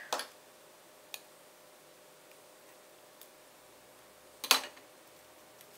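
Small handling sounds of paper backing being peeled off the adhesive of a card-making wobble spring: a couple of faint clicks, then one short, sharp crinkle about four and a half seconds in.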